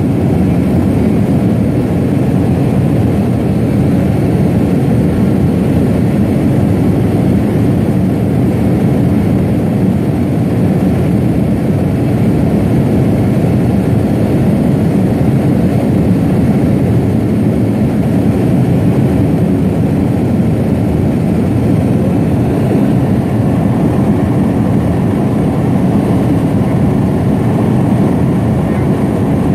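Loud, steady drone of a seaplane's engine and propeller in cruise flight, heard from inside the cabin.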